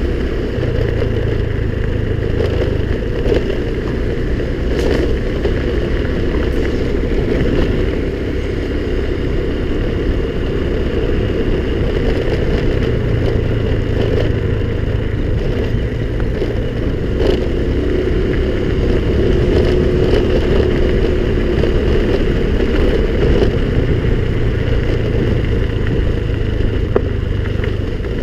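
Honda scooter running steadily on the move, with a constant rush of noise and a few sharp knocks and rattles along the way.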